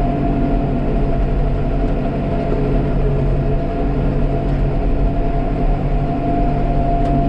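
Tractor engine running at a steady speed, an even drone with no change in pitch or level.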